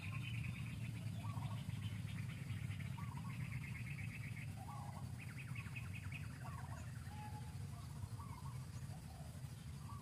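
Birds calling: a rapid trill repeated about four times, each about a second long, with short chirps scattered between, over a steady low rumble.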